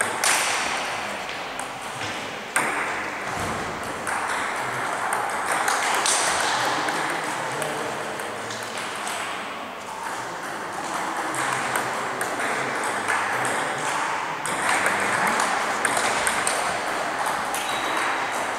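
Celluloid-type table tennis balls clicking off bats and the table: the hits of a rally about to end near the start, then scattered clicks from play at neighbouring tables, over the steady hum of a large sports hall with faint voices.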